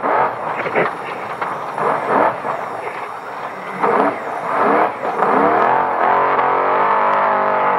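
An off-road race vehicle's engine driven hard on a dirt track. Its revs rise and fall several times, then settle into a steady high-pitched run near the end.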